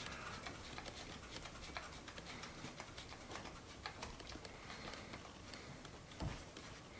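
Faint scattered clicks and light handling of a camera battery grip being screwed tight onto the camera body, with a soft low bump about six seconds in.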